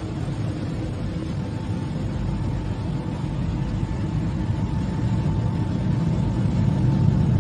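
A steady low rumble, growing slightly louder toward the end, with a faint steady tone above it.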